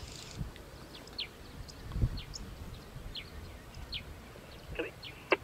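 Outdoor bush ambience with birds chirping: scattered short, high calls that slide downward, a few every second. A dull low thump comes about two seconds in, and a sharp click near the end.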